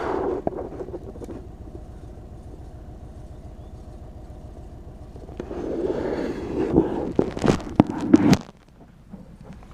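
2013 Ford Fusion engine idling roughly, a steady low pulsing. Louder rattling with sharp knocks comes in about five and a half seconds in, and everything drops off suddenly a little past eight seconds.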